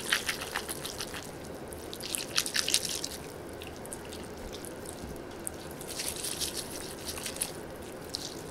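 Kelp noodles in mala broth being stirred and lifted with wooden chopsticks close to a microphone: clusters of wet slapping and clicking, busiest about two seconds in and again toward the end. The noodles sound just like regular glass noodles.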